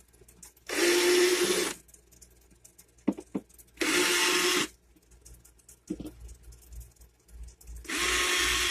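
Cordless drill/driver backing out screws holding the air conditioner's mounting rail, running in three short bursts of about a second each.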